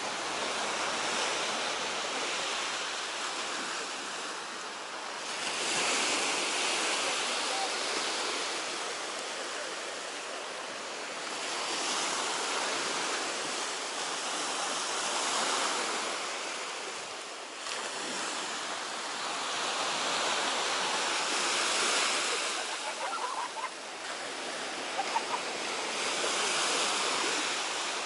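Baltic Sea surf: waves washing onto the shore in a steady rush that swells and eases about every five to six seconds.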